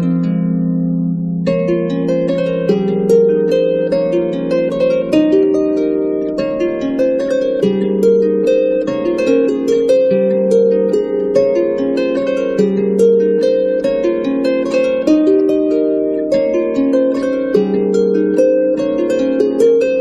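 Background music: harp-like plucked-string melody with rippling notes.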